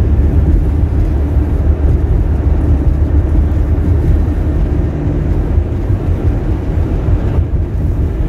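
Car interior road noise: a steady low rumble of engine and tyres heard from inside the cabin while driving.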